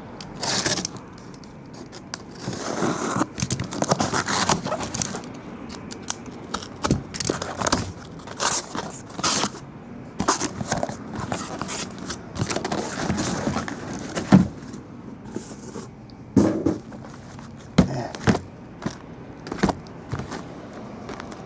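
A taped cardboard shipping case cut open with a box cutter and its flaps pulled back, then the sealed hobby card boxes inside slid out and set down on a table in stacks: scraping, cardboard rustling and a series of sharp knocks in the second half.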